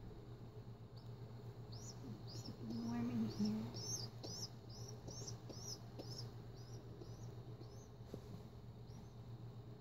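A baby pigeon (squab) peeping high-pitched begging calls, short rising squeaks about twice a second that die away near the end. A brief low hum-like sound about three seconds in, over a steady low electrical hum.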